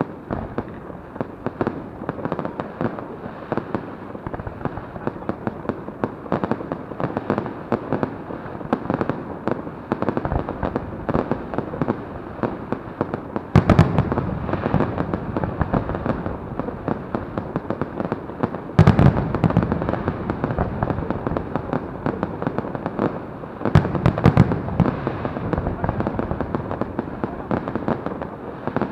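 Fireworks going off in a dense, continuous stream of bangs and crackling, with louder heavier salvos starting about 14, 19 and 24 seconds in.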